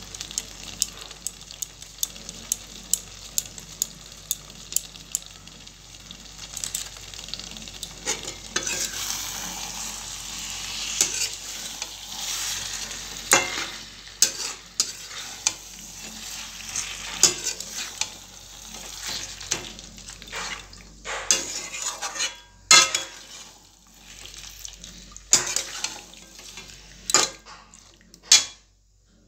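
Chicken kosha with green peas sizzling in a metal pan while a wooden spatula stirs it, scraping and knocking against the pan many times. The stirring gets heavier about a third of the way in, and the sound falls away just before the end.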